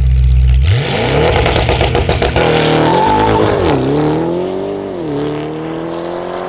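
Porsche 971 Panamera GTS's twin-turbo 4.0-litre V8, breathing through a catless Fi valved exhaust, idles for a moment, then accelerates hard. The note climbs, drops twice as it shifts up and climbs again, fading as the car pulls away.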